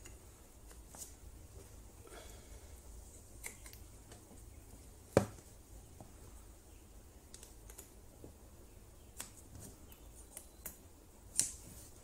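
Scattered small clicks and knocks from handling a battery spot welder control board and plugging its battery connector and welding-cable leads into it. There is one sharper click about five seconds in and another near the end.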